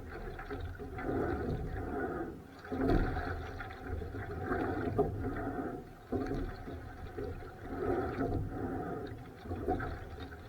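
Rowing boat on choppy water in strong wind: water washing and sloshing against the hull with wind rumble, swelling and fading in a rough rhythm every few seconds.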